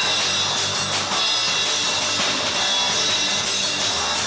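Punk-rock music: a drum kit keeping a steady beat of cymbal and drum strokes under guitar.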